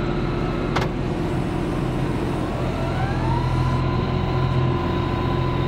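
John Deere 5075E tractor's diesel engine running steadily, with a sharp click about a second in. About three seconds in, a whine rises in pitch and then holds steady.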